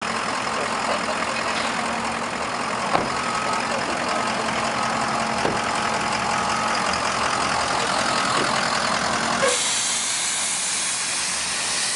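A vehicle engine idling with a steady low hum under a constant hiss. About nine and a half seconds in, the hum drops away and a brighter hiss takes over.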